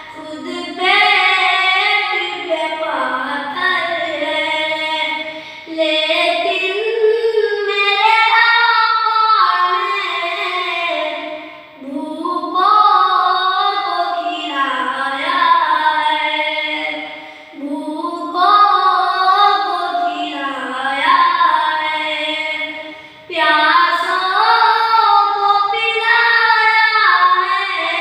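A solo high voice singing a naat, an Urdu devotional song, with no instruments heard, in long wavering phrases of about six seconds each, each ending in a short breath pause.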